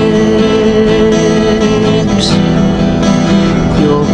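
Background music led by guitar, with sustained notes over a steady accompaniment.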